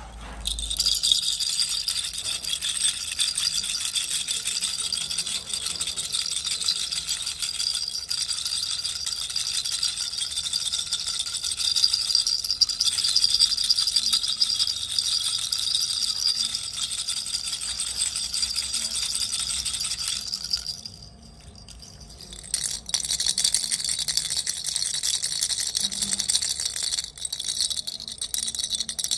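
Baby rattle shaken continuously, giving a dense, high-pitched rattling. It stops for about two seconds roughly three-quarters of the way through, then starts again.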